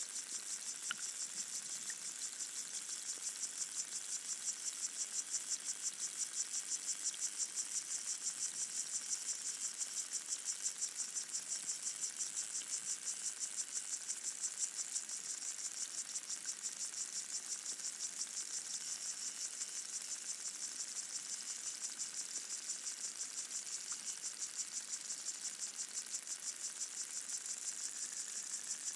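Underwater chorus of pygmy water boatmen (Micronecta sp.) stridulating, heard through a hydrophone: a dense, steady, high-pitched buzzing made of very rapid pulses. A few faint ticks sound now and then.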